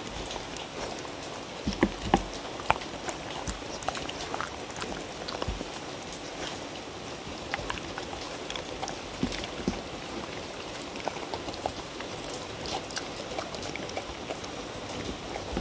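Dogs eating from a wooden bowl: a steady wet crackle of chewing and licking, dotted with irregular sharper crunches and clicks, and a few dull thumps, two of them a couple of seconds in.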